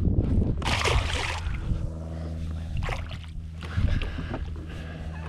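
Water splashing and sloshing against a kayak, with a louder splash about a second in, over a steady low motor hum.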